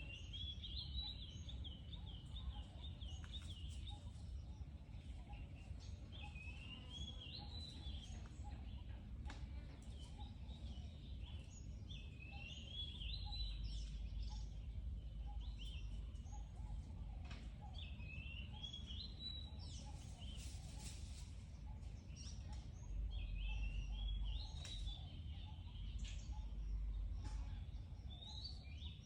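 A songbird singing short, high warbled phrases, repeated every few seconds, over a steady low rumble.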